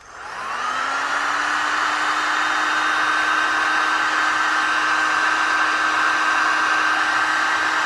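Heat gun blowing hot air steadily to shrink heat-shrink tubing over a soldered wire splice. Its motor spins up with a brief rising whine at the start, then holds a steady hum over the rush of air.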